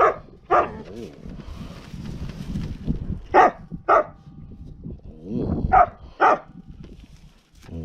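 A dog barking in three quick pairs of short barks, a few seconds apart.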